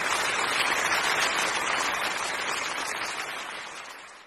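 Applause, fading away steadily over about four seconds.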